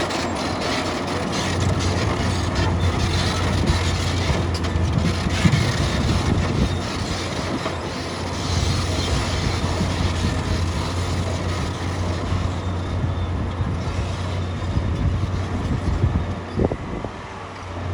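Heavy construction machine's diesel engine running steadily with a low drone and a continuous metallic rattle, dipping briefly near the end.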